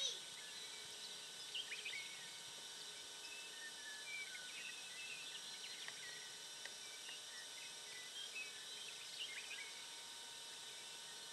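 Faint outdoor ambience: scattered short chirps of small birds over a steady hiss with faint constant tones.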